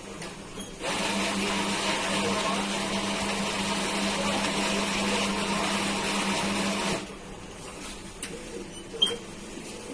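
Automatic espresso machine's built-in grinder grinding beans for a shot: a steady motor buzz with a hum that starts about a second in and cuts off suddenly about seven seconds in.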